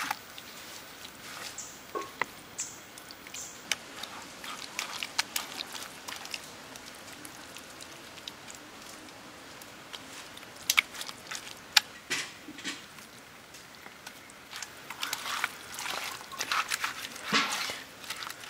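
Hands squishing and slapping as they rub a thick, wet masala paste into raw chicken pieces in a pot. Irregular wet squelches and clicks, busier near the end.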